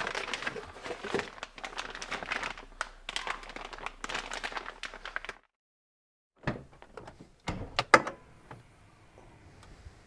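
Rapid rustling and clicking of parts being handled, then after a brief dead gap a few sharp knocks.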